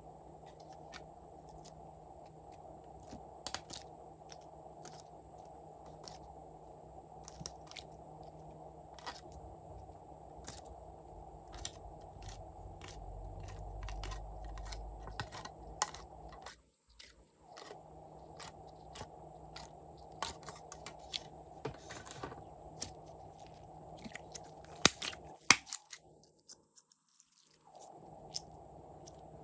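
Glossy slime being worked by hand, with many small sticky clicks and crackles over a steady background hum; a few louder clicks come near the end.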